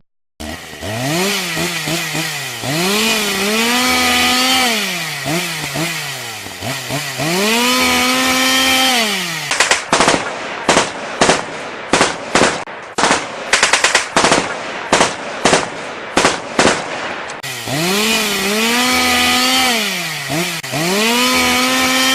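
Chainsaw revving up and down in long rising and falling sweeps, cut off for about eight seconds by a rapid run of some twenty sharp bangs, after which the chainsaw revs again.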